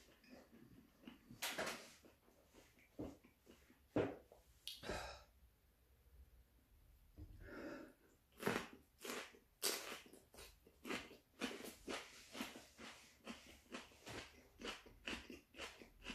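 A person biting into a raw green chili pepper and chewing it, the chewing coming about twice a second through the second half. Before the bite there are a few heavy breaths.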